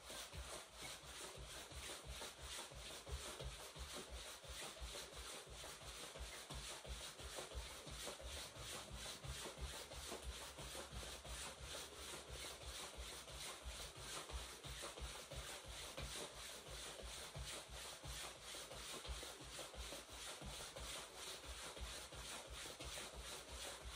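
Faint, even, quick rhythm of a jacket's fabric swishing and rubbing as the arms swing, with soft footfalls of jogging in place on the floor.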